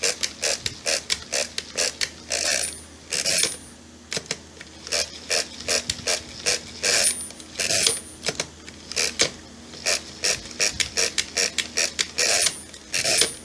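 Hand-cranked mechanical pinwheel calculator being worked through repeated subtraction: a quick run of ratcheting crank clicks and gear clatter, several turns a second. Three times there is a pair of longer strokes with a brief high ring from its overdraft bell, which rings when a subtraction goes below zero and calls for the turn to be added back.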